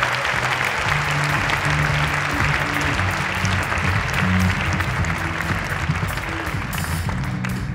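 Audience applause and cheering over music with low guitar notes. The clapping thins out near the end while the music goes on.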